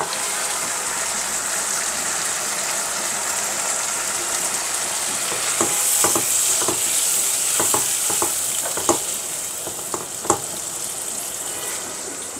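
Broiler chicken pieces sizzling as they fry in butter with garlic paste, a steady hiss that swells a little midway. In the second half a utensil knocks against the pan several times as the chicken is stirred.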